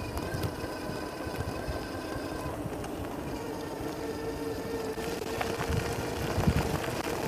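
Fiido L3 electric folding bike riding under power: the 350 W hub motor whines steadily over the low rumble of wind on the microphone and tyre noise, with a few sharp rattles in the second half as the bike rolls onto gravel.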